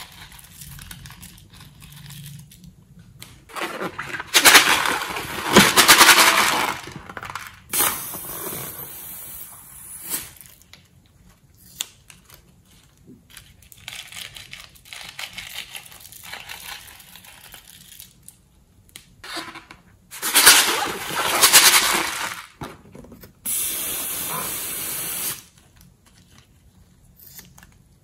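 Liquid squeezed from bottles into a glass bowl of glue and glitter, making two loud hissing squirts a few seconds long, then an even hiss for about two seconds near the end.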